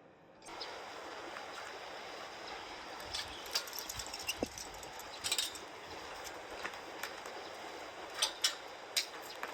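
Outdoor ambience: a steady hiss that sets in abruptly just after the start, with scattered short high chirps and clicks from about three seconds in.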